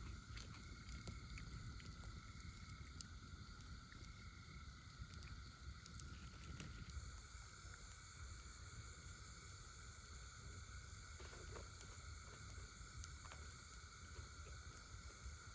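Faint night ambience by a campfire: soft scattered crackles of the burning wood over a steady high hum and a low rumble.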